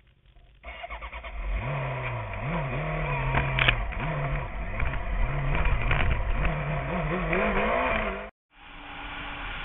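Street bike's engine starting up and being revved, the throttle blipped up and down repeatedly, with one sharp click partway through. Near the end the sound cuts out briefly and a steadier, quieter engine note follows.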